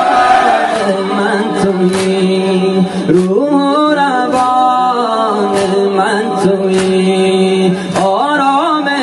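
Muharram noha: a solo voice singing a long, drawn-out wavering line of the lament over a steady drone, with a light beat.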